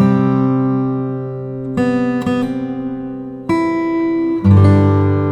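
Acoustic guitar music: chords struck and left to ring, with a new chord about every second.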